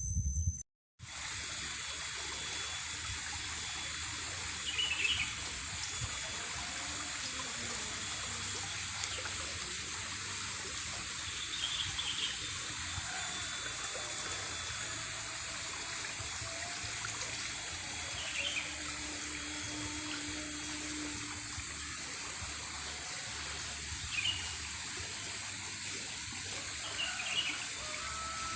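Steady flowing water with a high hiss, like a stream or small cascade, and short bird chirps every few seconds over it. It starts after a brief gap about a second in.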